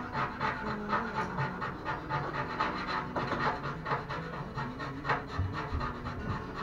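Repeated rubbing strokes on a surface, about three a second, like hand scrubbing or sanding.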